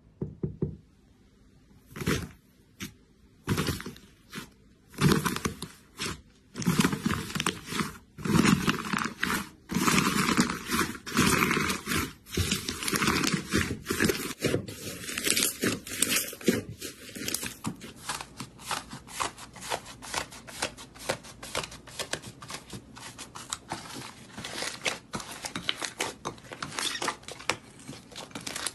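Slime being squeezed and kneaded by hand, with foam beads mixed into it at first: irregular bursts of crackling, crunching and tearing. About two-thirds of the way through it turns to a finer, denser crackle.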